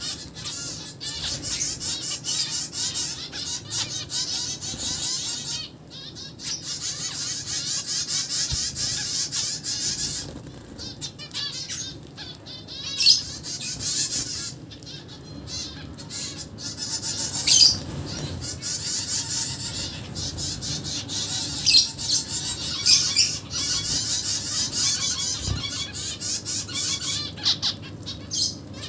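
A flock of zebra finches chattering continuously with many short, overlapping calls as they feed, with a few sudden louder wing flutters scattered through.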